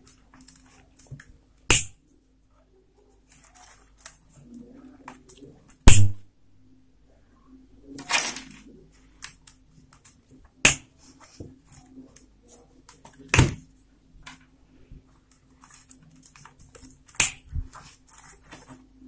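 Small cutters snipping through rolled newspaper tubes one at a time: about six sharp clicks a few seconds apart, the loudest about six seconds in. Light rustling and tapping of the paper tubes comes between the cuts.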